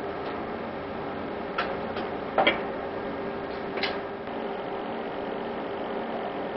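A steady machine hum made of several faint tones, with four short clicks scattered through the first four seconds.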